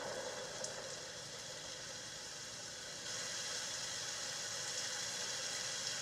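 Steady hiss of falling rain, a rain sound effect in a music video heard through speakers, with no music under it.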